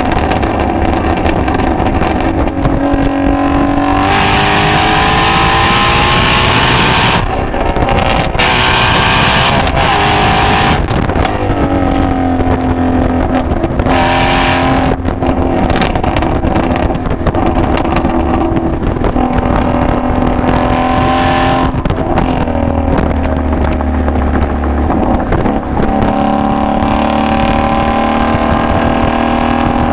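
Ford Mustang Shelby GT350's 5.2-litre flat-plane-crank V8 accelerating hard, the revs climbing and then dropping at each upshift several times. The engine then runs more steadily through the second half.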